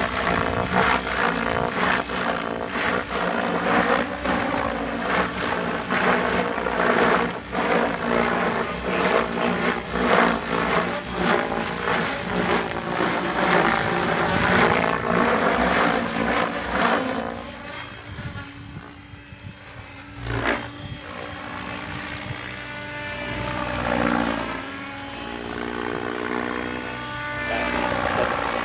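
Logo 690 electric RC helicopter flying on repaired VTX 697 main blades: the rotor and motor sound is loud for about the first half, then quieter, rising and falling in pitch as the rotor load changes.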